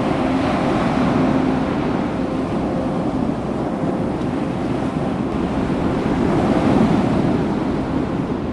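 Ocean surf washing onto a beach, swelling and easing, with wind buffeting the microphone.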